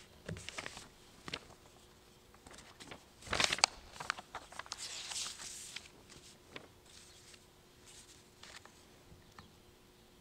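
Sheets of paper being handled and shuffled at a lectern: scattered soft clicks and rustles, with a louder rustle about three and a half seconds in.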